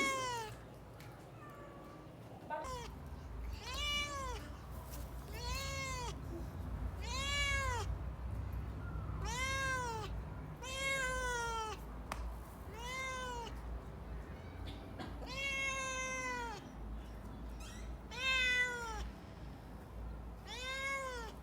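A domestic cat meowing over and over, about ten meows roughly two seconds apart, each rising and then falling in pitch.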